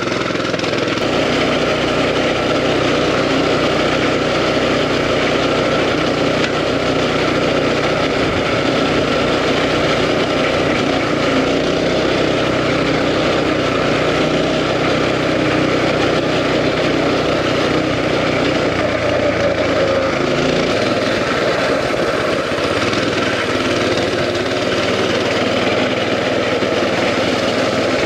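Coleman CT200U mini bike's 200cc single-cylinder four-stroke engine running steadily while riding; its note changes about two-thirds of the way through.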